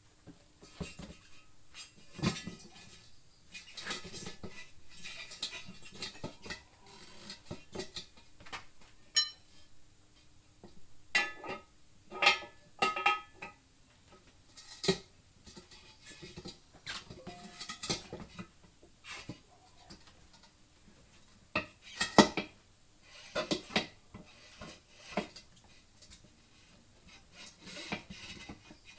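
Metal hand tools clinking and knocking against a wheel as a tire is mounted by hand: irregular clanks and scrapes with quiet gaps between, a few of them ringing briefly.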